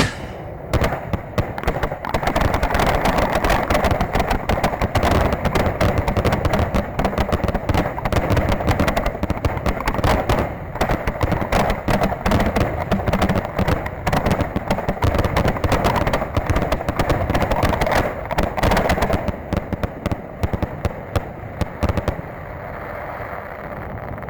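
Fireworks barrage: aerial shells bursting in rapid, overlapping reports with no break, like a finale, thinning out a couple of seconds before the end.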